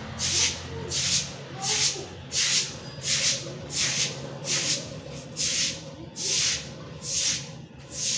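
Rhythmic rubbing strokes, about one and a half a second, slowing a little near the end, over a faint steady low hum.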